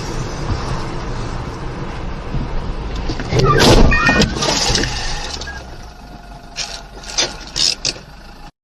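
Road vehicle noise, with a loud burst of noise about three and a half seconds in and a few short sharp knocks near the end.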